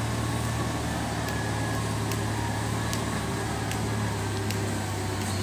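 Diesel engine of an SDLG wheel loader running with a steady low drone while it works the earth.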